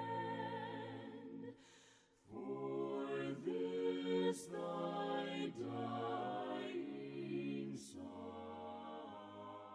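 A cappella hymn singing by several voices in harmony, long held notes in phrases with a short breath pause about two seconds in, fading out at the end.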